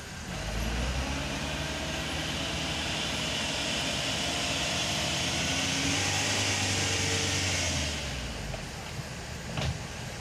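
Dump truck's diesel engine revved up to drive the hydraulic hoist as the tipper bed rises, dropping back to idle about eight seconds in. A single sharp knock near the end.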